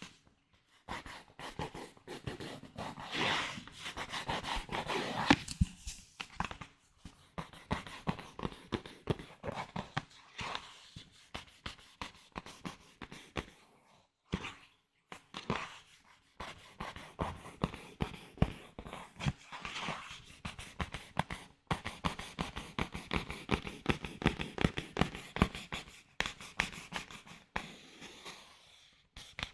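Close-miked ASMR trigger sounds: dense, irregular crackling and clicking from hands handling an object, with a few brief pauses.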